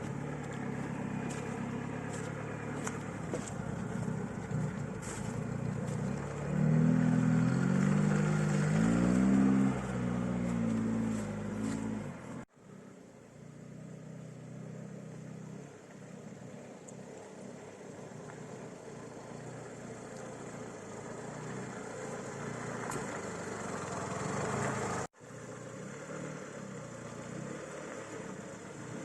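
Lada Niva Fora (VAZ-21218) engine running as it drives off-road, revving up and down a few times about seven to ten seconds in. The sound breaks off abruptly twice, and after the first break the engine is quieter and steadier.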